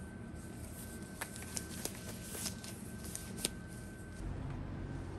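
Metal printing powder being sieved by hand: scattered light taps and clicks of the sieve and container. A low steady hum comes in about four seconds in.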